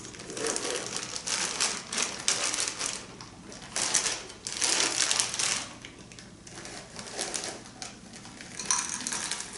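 Mini chocolate chips being poured, a rapid rattle of many small hard pieces that comes in several bursts, loudest about four to five and a half seconds in.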